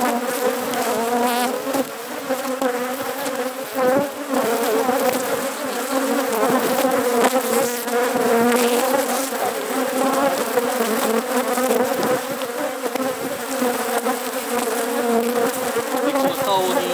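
Honeybees buzzing in a dense swarm around an opened hive: a loud, steady hum whose pitch wavers, the sound of a very populous colony disturbed during inspection.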